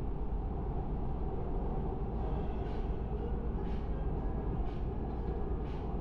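Seoul Subway Line 2 train running over a river bridge, heard from inside the car: a steady low rumble, with a faint hiss coming back about once a second from about two seconds in.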